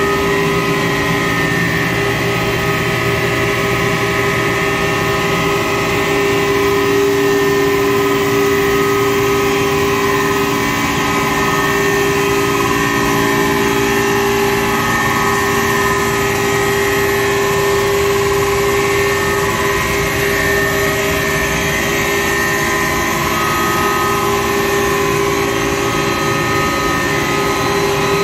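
Loud, steady machinery noise of a cruise ship's engine room: running engines, pumps and motors, heard as several steady hums and whines over a dense, even noise that does not change.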